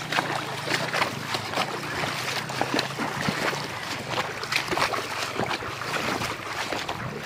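Footsteps wading through shallow floodwater, a splash and slosh with each step, one after another.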